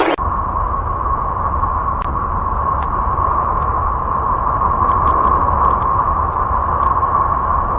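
Sonified space recording: a steady electronic-sounding drone with a held tone over a low rumble, and a few faint clicks scattered through it.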